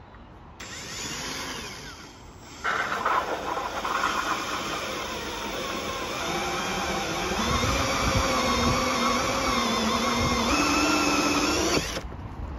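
Cordless drill spinning a 64 mm hole saw through a van's plastic bumper trim. A short run about half a second in, a brief lull, then a steady cutting whine whose pitch sags partway through and picks up again near the end, stopping abruptly just before the end.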